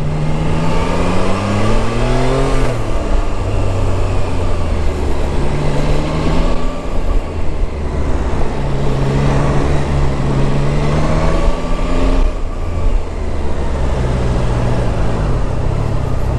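Triumph Tiger 660's three-cylinder engine accelerating under way, its pitch climbing and dropping back several times as the bike pulls away and shifts up.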